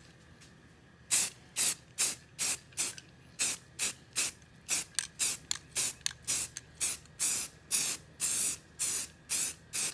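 Aerosol can of Rust-Oleum 2X flat grey spray paint hissing out short, quick bursts, about two a second, laying on light coats. The spraying starts about a second in.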